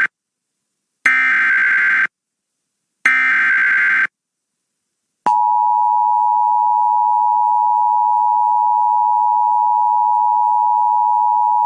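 Emergency Alert System SAME header: the tail of one burst of screechy data tones, then two more one-second bursts a second apart. About five seconds in, the steady two-tone EAS attention signal (853 and 960 Hz) starts and holds.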